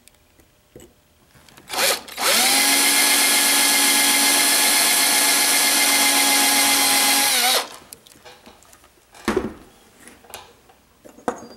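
A small electric drill spins up, runs at a steady high whine for about five seconds while boring into a piece of flattened wire at a punched mark, then winds down. A knock comes just before it starts, and a couple of light clicks follow.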